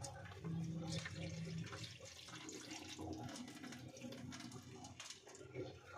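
Rinse water being poured off rice from a container into a steel sink, a thin stream splashing faintly on the steel.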